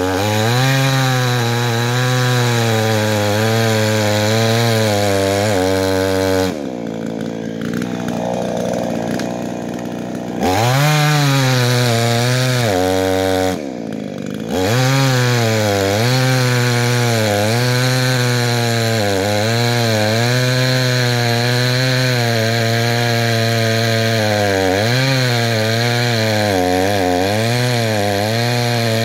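52cc two-stroke chainsaw with a 22-inch bar at full throttle, cutting through a large log, its engine pitch wavering under load. About a quarter of the way in the throttle is let off to idle for a few seconds and then revved back up into the cut. It drops to idle again briefly about halfway through, then returns to full-throttle cutting.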